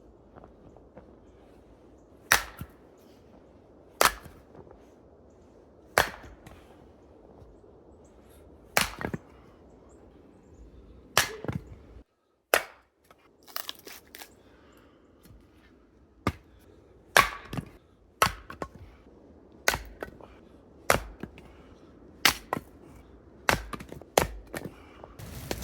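Firewood being chopped: about twenty sharp, cracking blade strikes on wood, one every second or two.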